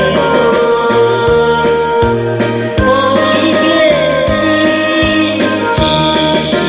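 A man singing a Taiwanese Hokkien ballad into a handheld microphone over a karaoke backing track with a steady beat and bass.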